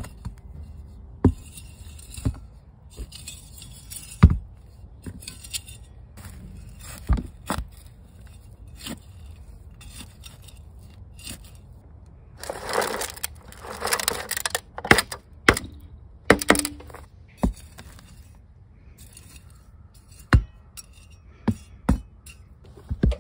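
A hand trowel scraping and digging through gritty soil in a plastic storage bin, with scattered sharp knocks and clinks. About halfway through there are a few seconds of louder scraping and rustling as chopped kitchen scraps are tipped in from a foil tray.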